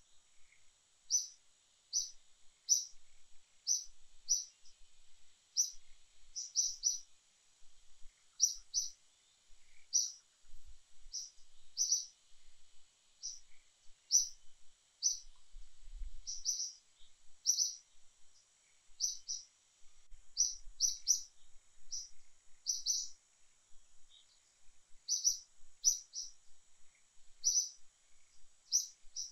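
A bird calling over and over with short, high chirps, about one or two a second, over a faint steady high drone.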